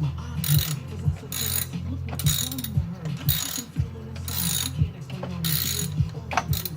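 Socket ratchet clicking in short strokes, roughly once a second, as a spark plug is run down into the cylinder head. A steady low hum lies underneath.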